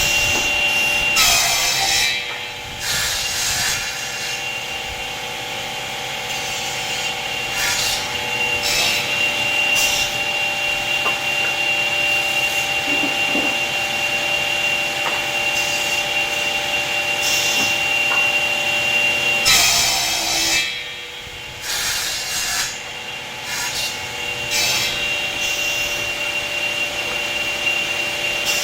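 Combination woodworking machine running with a steady whine while wood is cut on it. Twice, near the start and about two-thirds through, the whine breaks off among louder bursts of cutting noise.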